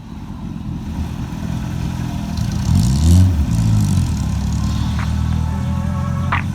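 Car engine running, revved once about three seconds in, its pitch rising and then dropping back to a steady run.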